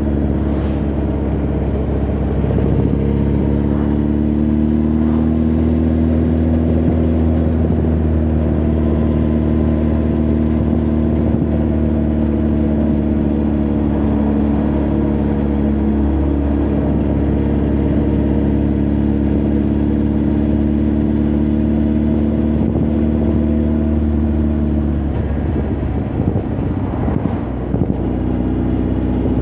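Honda CB1300 Super Bol d'Or's inline-four engine and exhaust running at steady cruising revs, heard from the rider's position. The pitch rises slightly a few seconds in, then holds even; near the end the steady note breaks up for a few seconds before settling again.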